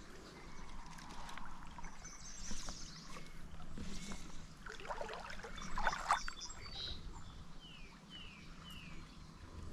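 Creek water splashing and sloshing, loudest in a burst about five to six seconds in. A bird gives three short falling chirps near the end.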